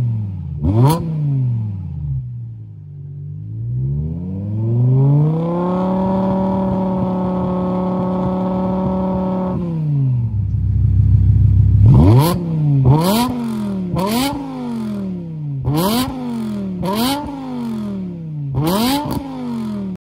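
BMW E60 M5's 5.0-litre V10 revved through a Supersprint full 70 mm exhaust, very loud. A quick blip near the start, then the revs climb and are held steady for a few seconds before dropping to a low rumble. From about halfway a fast series of about eight blips follows, roughly one a second, each with a sharp crack.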